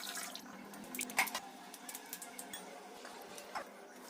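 Raw blue crabs being cleaned by hand: scattered clicks and small knocks of shell with wet squishing, one sharper knock about a second in.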